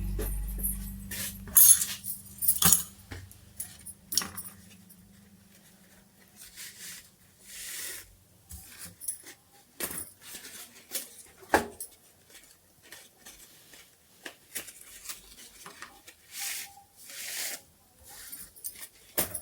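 Small metal parts being handled, giving scattered clinks, clicks and short rustles. A low hum dies away in the first second.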